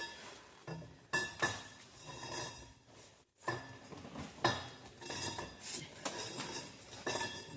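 Metal tools clinking and knocking against metal, a series of irregular sharp clinks with brief ringing.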